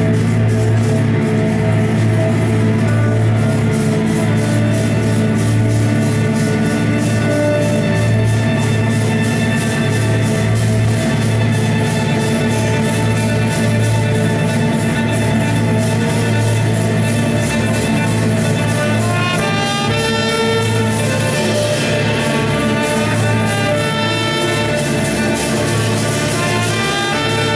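Live chamber music: two violins and a trumpet play over a steady low drone. About two-thirds of the way through come quick runs of short notes, rising and falling.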